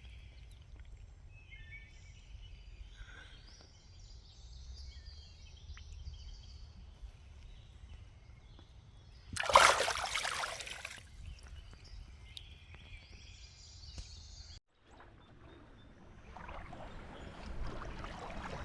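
Creek water outdoors: faint high chirps over a low steady rumble, one loud splash of water about halfway through, then water sloshing and running louder toward the end.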